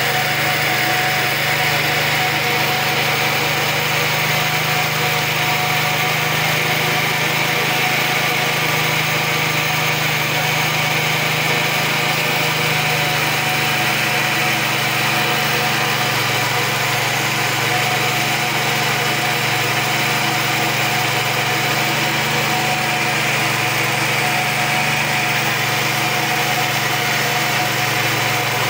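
Small stationary diesel engine running steadily, driving a coffee pulper. Its note drops slightly about halfway through.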